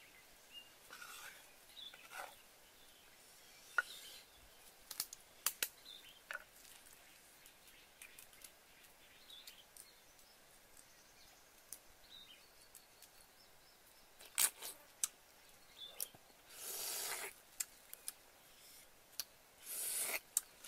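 Faint handling of boiled duck eggs: scattered small clicks and taps of shells being knocked and peeled, with two longer rustles near the end.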